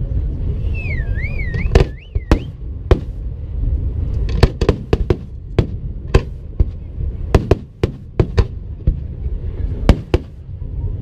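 Fireworks display: an irregular run of sharp bangs over a steady low rumble. A whistling firework warbles up and down in pitch about a second in.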